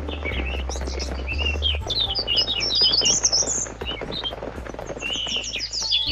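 Songbirds chirping and twittering in a dense chorus, busiest and loudest in the middle, over a low steady hum.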